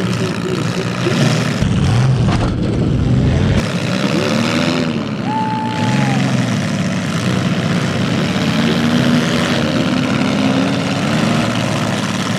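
Several front-wheel-drive demolition derby cars' engines running and revving at once, their pitches rising and falling over one another. A deep rumble runs from about two to four seconds in.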